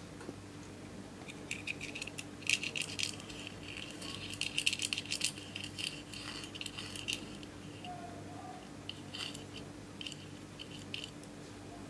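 A small tool scraping and chipping pressed glitter eyeshadow out of its pan: runs of short, scratchy clicks and scrapes, pausing for a second or two about seven seconds in and starting again briefly. A steady low hum runs underneath.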